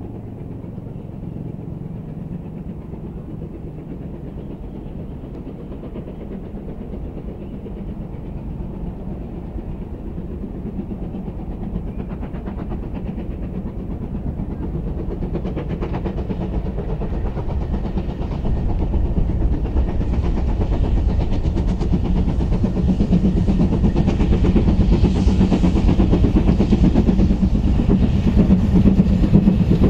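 Steam-hauled goods train approaching, the rumble of the locomotive and wagons on the rails growing steadily louder and loudest near the end.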